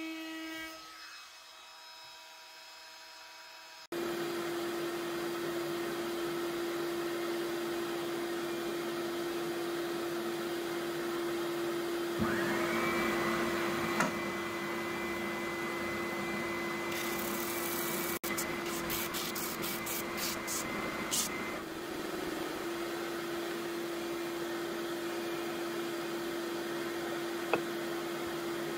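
A compact trim router's whine fades out in the first seconds. Then, about four seconds in, a benchtop oscillating belt sander starts and runs with a steady hum while a wooden box is sanded against its belt, with a higher whine added for several seconds in the middle.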